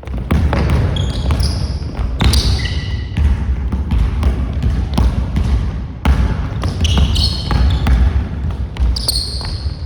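Basketball being dribbled on a gym floor, with repeated thuds and short high sneaker squeaks several times as the players move, over a steady low rumble.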